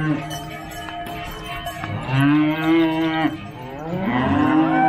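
Cows mooing: two long moos, each rising at the start and then held, one about two seconds in and one near the end, with cowbells ringing faintly underneath.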